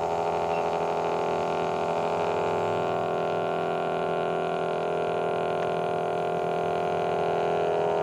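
Background music: a sustained, droning synth track with held tones.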